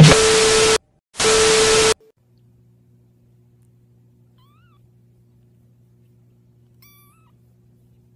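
Two loud bursts of static hiss, each under a second and each with a steady beep, from a countdown intro. Then a newborn kitten gives two thin, high, faint mews over a faint low hum.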